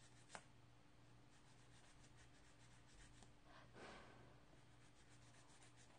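Faint scratching of a nail file on fingernails, in many light quick strokes while the nail tips are filed down. A soft click comes just after the start, and a slightly louder rub about four seconds in.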